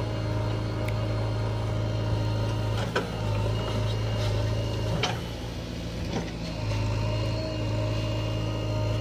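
JCB 3DX backhoe loader's diesel engine running steadily under load while the backhoe digs and dumps soil into a trolley. There are two sharp knocks about three and five seconds in, and the engine note dips briefly after the second before picking up again.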